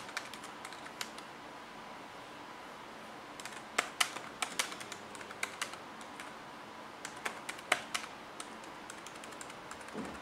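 Keys of an Alcatroz Xplorer Dock 2 Bluetooth keyboard clicking as someone types, in uneven runs of quick keystrokes with short pauses between them. The keys have a distinct metallic sound, firmer than a membrane keyboard but not mechanical switches.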